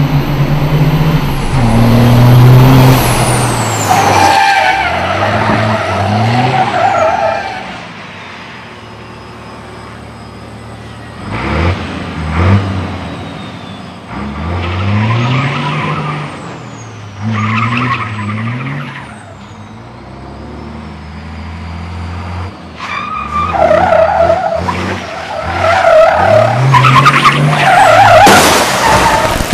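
Race truck's diesel engine revving hard again and again, each rev rising and falling in pitch, with tyres squealing and skidding as the truck drifts. There is a quieter stretch about a third of the way through.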